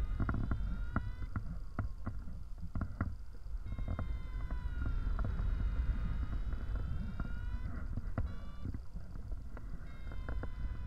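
Wind buffeting the microphone during a paraglider flight: a steady low rumble, with a faint whistling tone that slowly wavers up and down and a few sharp taps.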